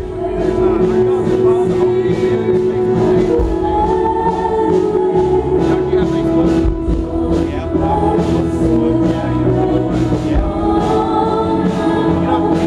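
Gospel worship music: voices singing over held chords and a steady beat.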